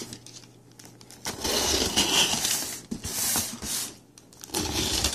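Packing tape being torn off a cardboard box, with crinkling cardboard, in two stretches: a longer one starting about a second in and a shorter one near the end.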